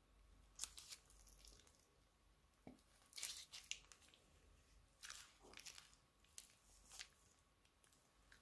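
Plastic piping bag crinkling in several short, soft rustles as it is squeezed by hand.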